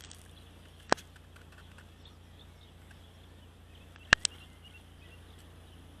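Three sharp clicks over a faint steady background: one about a second in and a quick pair about four seconds in.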